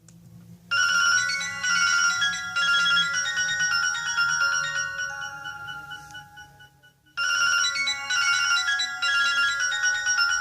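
A Nokia 216 ringtone playing from a Sony Ericsson W595 mobile phone's loudspeaker: a bright electronic melody that starts about a second in, breaks off briefly near the seven-second mark, and starts over from the top.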